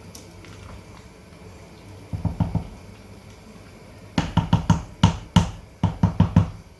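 A kitchen spoon knocking against a cooking pot in quick runs, about five knocks a second: four knocks about two seconds in, then about a dozen more from about four seconds in.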